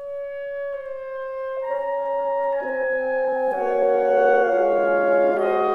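Background music: a single held note opens, and further sustained notes join one by one about every second, building into a fuller chord that grows steadily louder.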